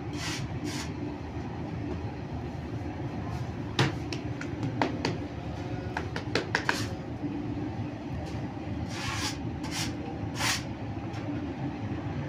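Steady hum of bakery machinery, with scattered clicks and knocks and, near the end, a few short swishes of hands working dough on a flour-covered table.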